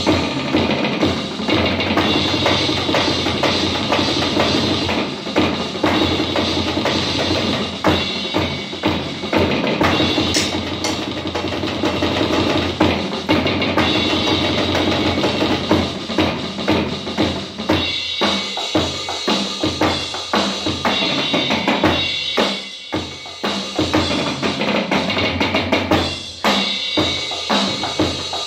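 Electronic drum kit played fast and busy, with bass drum, snare and cymbal sounds. In the second half the playing breaks into sharper separate hits with short gaps between them.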